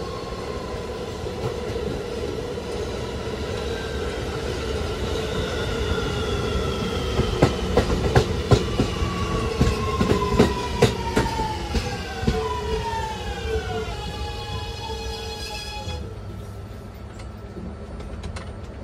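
2020–21 Kawasaki R211A subway car's Alstom OptONIX IGBT-VVVF traction inverter and motors whining, the tones falling steadily in pitch as the train slows, over the rumble of the train. A run of sharp clicks and knocks comes in the middle, and a set of steady high tones sounds near the end before the motor sound cuts off about 16 seconds in.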